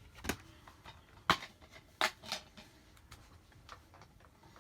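A few sharp clicks and taps, the loudest about a second in, with quiet handling noise between them.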